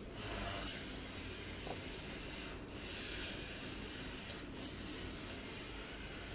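Faint rubbing and handling of a small metal cutting blade being slid into place against the cutter disc of a mask nose-wire cutter, with a couple of light clicks a little past the middle, over a steady hiss.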